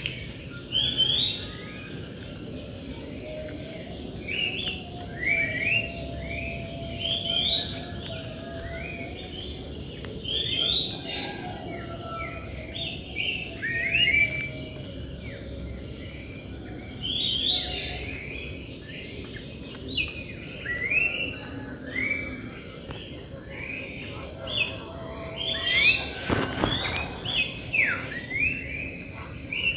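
Wild birds singing in a dense chorus of short, quick chirping phrases over a steady high buzz of insects. A short bump near the end is the loudest single sound.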